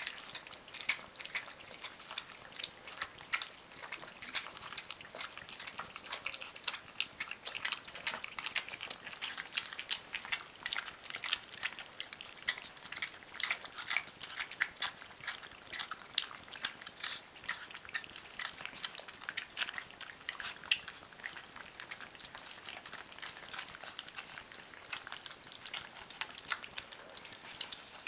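Three Rhodesian Ridgeback puppies, about three weeks old, lapping and chewing milk-soaked cereal rings from a plastic plate, their first food other than their mother's milk. It is a dense, irregular run of small wet smacks and clicks.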